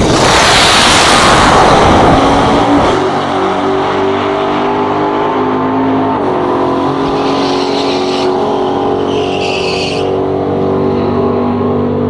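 Two drag-racing cars, a Chevrolet Corvette and a Chevrolet Malibu, launching at full throttle: a loud rush of engine and tyre noise over the first two to three seconds. Their engines then keep running hard as the cars pull away down the strip, with the engine tones shifting at about six seconds.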